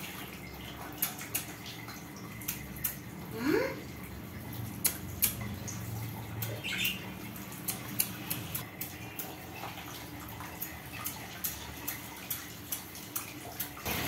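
Fine water spray hissing down onto a wire budgie cage, with many scattered sharp ticks of drops striking the cage and tray. One short rising chirp about three and a half seconds in.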